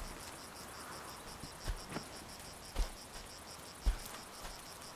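Insects chirping in a rapid, even, high-pitched pulse, with a few soft low thumps now and then, the loudest about three and four seconds in.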